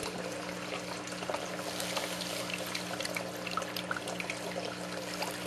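Water pouring and trickling as a mining bowl is rinsed out into the trap of an underflow sluice box, carrying the last sand and gold through, with a steady low hum underneath.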